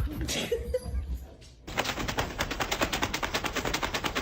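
A fast, even run of sharp clicks, about ten a second, starting abruptly about halfway through and going on to the end, after a short stretch of rustling noise.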